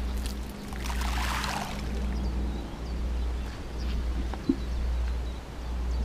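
A baiting spoon of carp groundbait swung out over a pond, giving a short rushing swish about a second in. A steady low rumble runs underneath.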